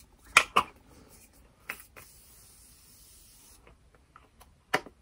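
A makeup setting spray misted onto the face: about a second and a half of steady hiss from the pump nozzle. Sharp clicks from handling the plastic bottle come before it and once more near the end.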